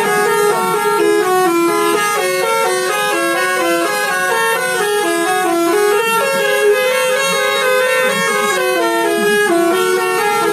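Telolet bus horn, a multi-trumpet musical air horn, playing a tune without a break: quick stepped notes, several sounding together.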